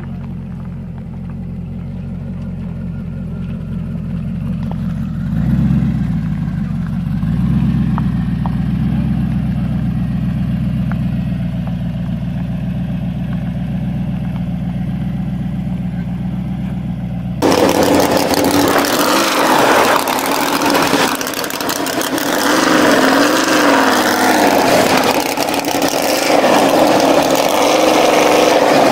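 Chevy 6.2 L V8 in a custom motorcycle idling with a deep, steady beat, blipped twice about five and seven seconds in. About two-thirds through, the sound cuts abruptly to a different, louder engine running raw with a wavering pitch: a paddle-tyred dirt drag bike.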